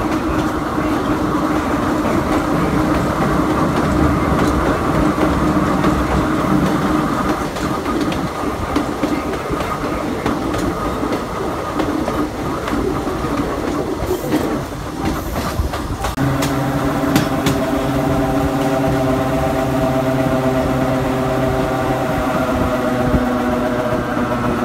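Hakone Tozan Railway Moha 1 electric railcar running slowly around a very sharp curve, heard through a fully open window: steady wheel and running noise with a few clacks. About two thirds of the way through, the steady whine of its nose-suspended traction motor drive comes in.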